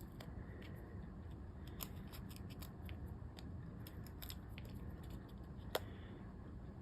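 Foam adhesive dimensionals being peeled off their sheet and pressed onto paper: faint, scattered crisp ticks and crackles, with one sharper click about six seconds in.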